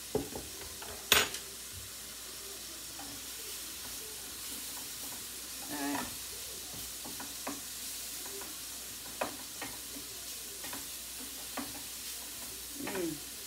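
Food sizzling in frying pans as asparagus is stirred and pushed about with a wooden spatula: a steady sizzle with scattered clicks and scrapes of the spatula on the pan. A sharp knock about a second in is the loudest sound.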